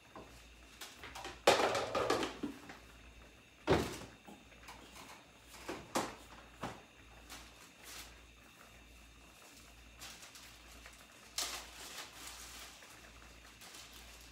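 Kitchen handling sounds: a few knocks and thuds, the loudest about a second and a half in and again near four seconds, smaller ones around six seconds, and another cluster near eleven and a half seconds, as cupboard doors and items are moved about.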